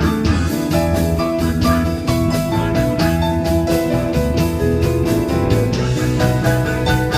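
Live band playing a slow blues in E: guitar over a steady drum beat.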